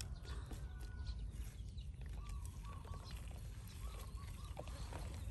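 Light, scattered taps as sliced aromatics and chopped green onion are dropped by hand into a plastic tub of duck egg yolks, over a steady low outdoor rumble. A few brief, faint high calls of animals sound in the background.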